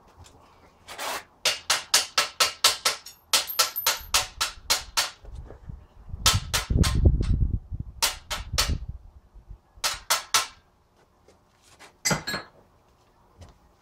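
A metal hammer striking the steel bracket on an engine stand in fast runs of about four or five blows a second. There are two long runs, the second with a low rumble under it, then a short run and a single knock near the end.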